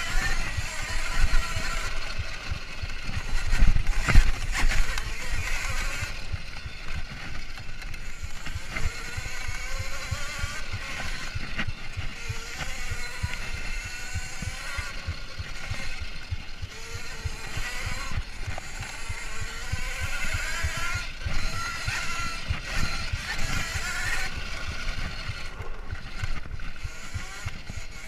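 Kuberg Ranger electric off-road motorbike ridden hard on a rough dirt trail. The electric motor's whine rises and falls with speed over a constant rattle and knocking from the bumps, which are heaviest around three to four seconds in.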